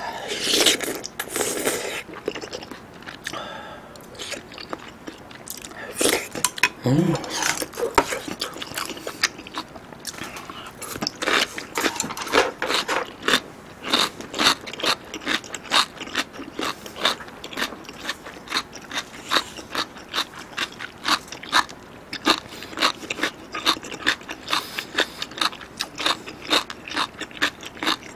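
Close-miked chewing of a mouthful of tofu and beef from a bulgogi hot pot: mouth clicks and smacks that settle into a steady rhythm of about two chews a second. A short hum about seven seconds in.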